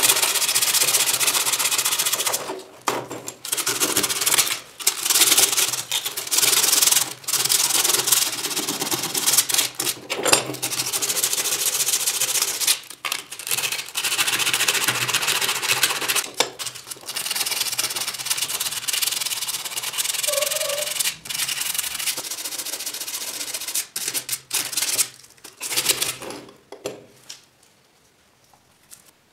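Sandpaper rubbed by hand over the metal blade of an antique areca nut cutter, a hissing scrape in long runs of strokes broken by short pauses, stopping near the end.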